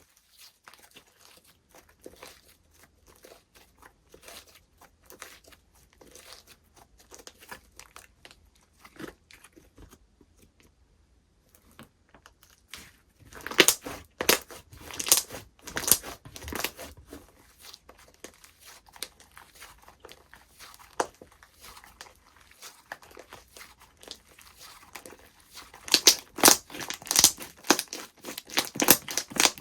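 Slime being squished and stretched by hand, giving dense crackling and popping clicks. It is fainter for the first dozen seconds, then comes in louder clusters about halfway through and again near the end.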